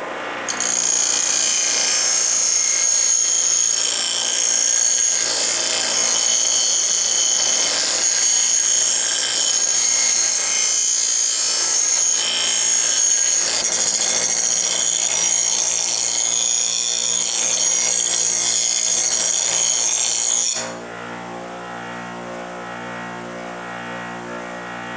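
Bench grinder wheel grinding the edge of an unhardened 410 stainless steel knife blank, a loud, high-pitched, even grinding screech. About 20 seconds in the blade comes off the wheel and the screech stops suddenly, leaving the grinder running free with a lower steady hum.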